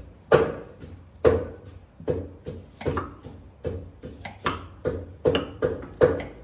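Knife chopping on a board: about a dozen sharp strikes, roughly two a second and unevenly spaced.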